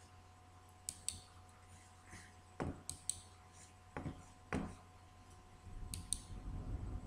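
Computer mouse clicks in quick pairs, three times, with a few dull knocks in between and a low rustle of handling near the end.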